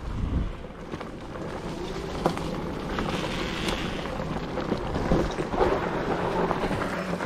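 Wind buffeting the microphone and tyres rolling over a leafy dirt trail while riding an electric bike, a steady rushing noise with a few sharp knocks about two and five seconds in.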